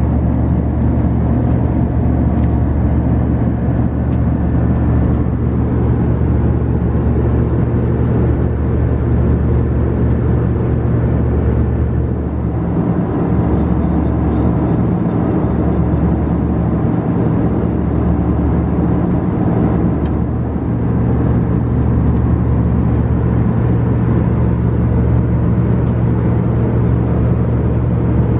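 Steady low rumble with a constant deep hum: the running noise of a vehicle.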